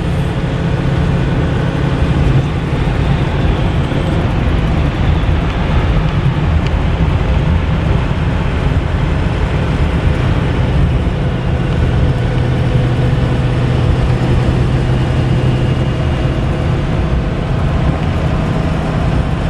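Steady in-cab drone of a 2010 Ford F-450 turbo-diesel truck cruising at road speed, engine hum and tyre and road noise, smooth and unchanging.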